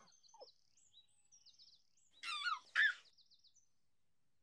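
Birds chirping in quick, repeated high notes, with one louder, brief, high gliding squeal a little past the middle.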